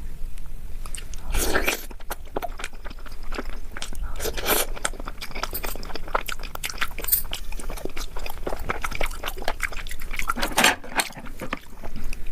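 Close-miked eating of Indian sweets: steady chewing with many small wet mouth clicks, and three louder bites or slurps, about a second and a half in, around four and a half seconds in, and near ten and a half seconds.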